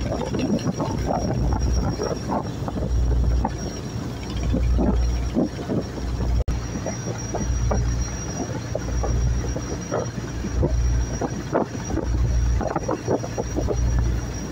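Wind buffeting the microphone on a boat under way, with a low rumble that swells and fades every second or two.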